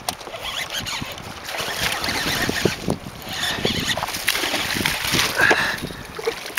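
Water splashing irregularly as a hooked bass thrashes at the surface beside the boat, with a landing net plunging into the water near the end.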